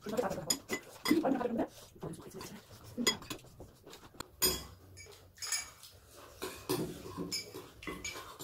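Metal spoons clinking and scraping against ceramic bowls and plates as people eat, in irregular light clicks and knocks.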